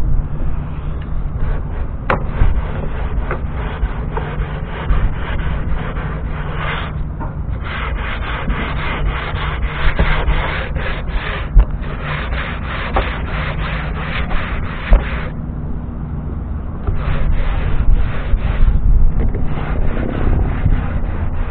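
Hand sanding of a wooden boat hatch frame with a sanding block: quick back-and-forth scratchy strokes, breaking off briefly about a third of the way in and again for a couple of seconds past two-thirds.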